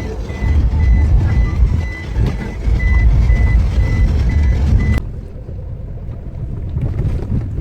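A vehicle runs with a loud, low rumble while a high electronic warning beep repeats about twice a second. About five seconds in, both cut off suddenly and give way to a quieter, duller rumbling noise.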